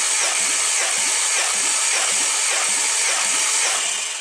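Peugeot TU5JP4 1.6-litre 16-valve petrol engine being cranked on its starter for a compression test of the third cylinder: a steady loud hiss with a regular pulse a little under twice a second, stopping about four seconds in. The gauge builds to 11 kg/cm² on this cylinder.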